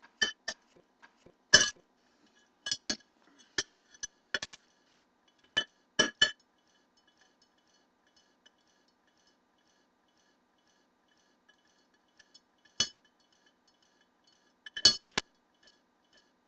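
Cutlery clinking against dishes while eating: sharp, ringing clinks in irregular clusters over the first six seconds, then two more clinks near the end.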